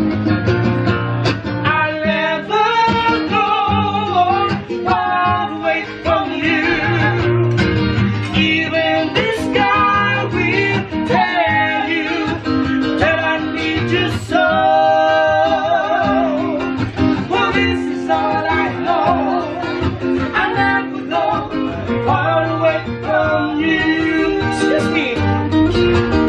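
Live singing with a wavering vibrato on held notes, over a strummed acoustic guitar.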